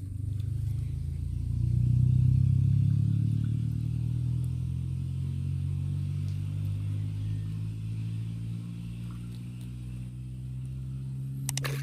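A low, steady engine hum that swells about two seconds in and then slowly eases off.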